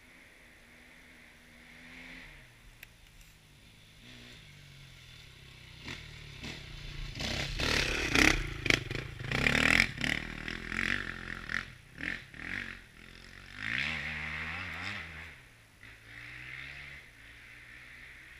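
Enduro dirt bike engine, unseen, revving and changing gear, rising and falling in pitch. It grows from faint to loudest with sharp throttle bursts about eight to ten seconds in, swells again around fourteen seconds, then fades.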